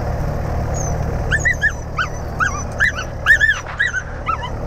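A young dog whimpering and yipping in distress, about a dozen short high cries that each rise and fall, coming quickly one after another from about a second in, over the steady low drone of the light airplane's running engine heard inside the cabin.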